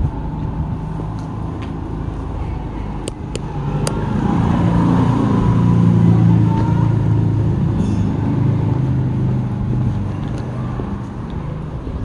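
A motor vehicle's engine hum that grows louder over a few seconds and then fades, over low outdoor rumble, with a few light clicks about three seconds in.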